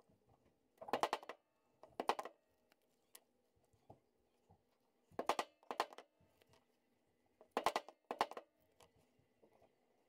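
Short scraping strokes of a hand tool worked along the edge of a stitched leather piece: six strokes in three pairs, each under half a second.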